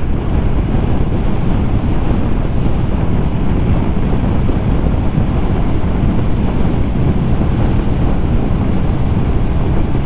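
Steady wind rush buffeting the microphone while riding a scooter at highway speed, with road and motor noise blended in beneath.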